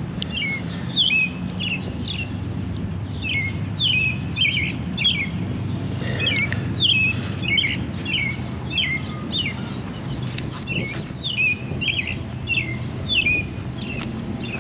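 A bird chirping over and over, short falling notes about two a second, over a steady low hum.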